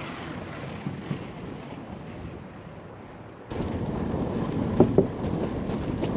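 Bicycle riding along a wooden boardwalk: steady wind on the microphone and rolling noise, jumping suddenly louder about three and a half seconds in, with two short knocks about a second later.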